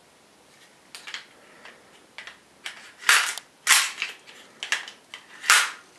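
WE G26C gas blowback airsoft pistol being worked and fired: a few faint clicks, then sharp gas shots about three seconds in, again a moment later, and once more near the end.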